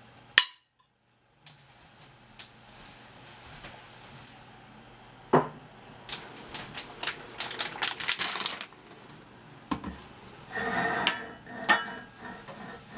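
Kitchen clatter of pots, pans and utensils at a stove: a sharp knock, a run of quick clicks and clinks, then a few more knocks near the end.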